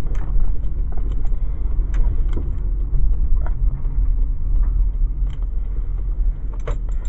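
Car running, heard from inside the cabin: a steady low rumble with small rattles and clicks scattered through it.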